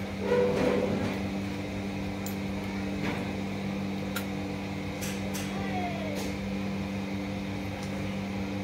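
Steady electrical hum from a shop fan or appliance, with a few faint metallic clicks and ticks as the screw-in handle of a 5000-size spinning reel is threaded onto the reel. A brief louder noise comes about half a second in.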